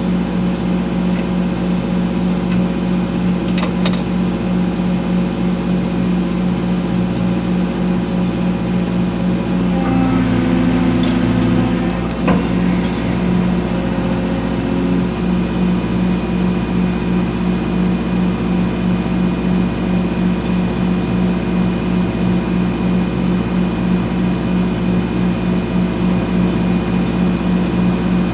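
Hydraulic excavator's diesel engine running steadily with a low hum. About ten seconds in, the engine note changes and rises a little for a couple of seconds, followed by a single knock.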